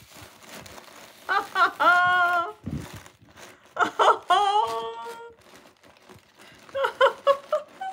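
Bubble wrap and packaging crinkling as items are pulled out of a cardboard box, with three drawn-out wordless vocal sounds that glide in pitch.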